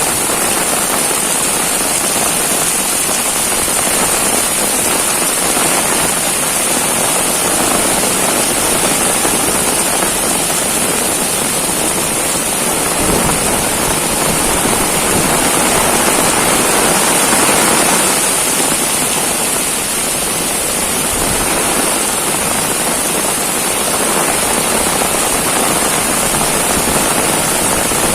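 Heavy rain pouring down steadily, a dense hiss of drops that swells slightly about two-thirds of the way through.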